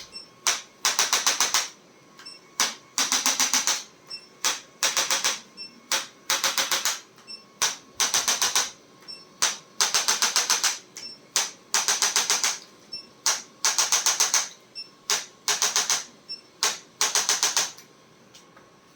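Sharp mechanical clicking in repeated bursts: a single click, then a quick run of about six to eight clicks, over and over every second and a half or so, stopping near the end.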